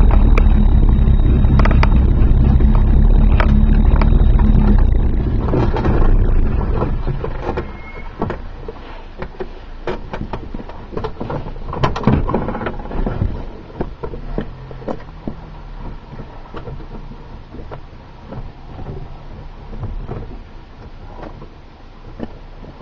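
Car heard from inside the cabin, engine and tyres on a wet road running with a steady low rumble, which fades about six to eight seconds in as the car slows to a stop in traffic. After that, a quiet low idle with scattered light clicks and taps.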